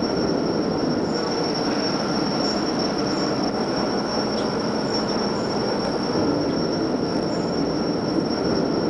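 Steady industrial machinery noise: a dense, even rumble with a thin, constant high whine above it.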